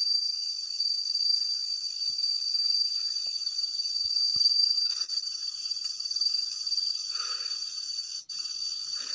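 Steady high-pitched chorus of night insects, crickets by the sound of it, trilling without a pause except for a brief break near the end.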